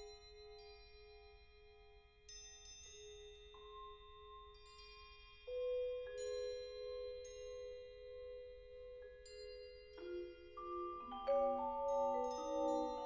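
Vibraphone and marimbas played with mallets: sparse single notes, including very high pinging ones, that ring on for seconds, some with a slow waver, then about ten seconds in a louder, denser cluster of overlapping notes.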